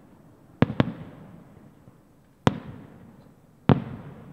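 Aerial fireworks going off: four sharp bangs, two close together about half a second in, one about two and a half seconds in and one near the end, each trailing off in a rolling echo.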